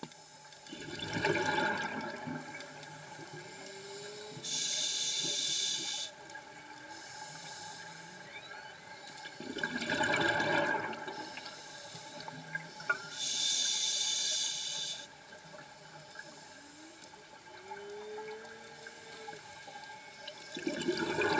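Scuba regulator breathing heard underwater: a hiss of inhalation through the demand valve alternating with a gurgling rush of exhaled bubbles, in a slow cycle of about one breath every nine seconds.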